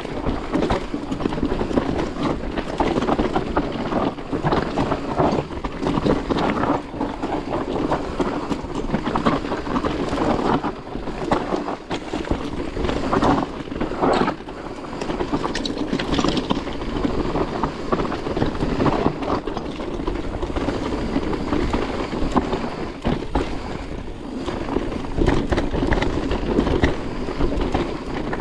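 Electric mountain bike riding down a dirt trail: tyres rolling over dirt, roots and stones, with a constant clatter of knocks and rattles from the bike as it hits bumps.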